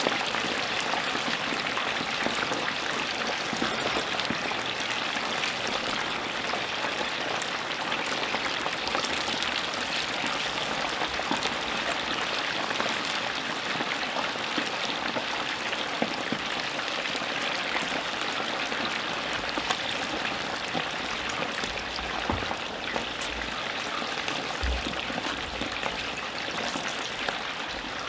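Chicken wings deep-frying in hot oil in Dutch ovens: a steady, dense sizzle full of small crackling pops.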